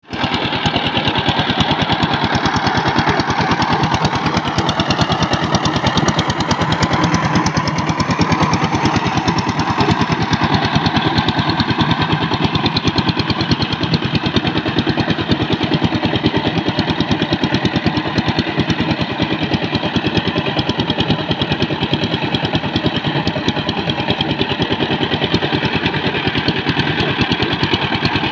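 Two-wheel power tiller's single-cylinder diesel engine running steadily under load with a fast, even chugging as the tiller works through wet paddy mud.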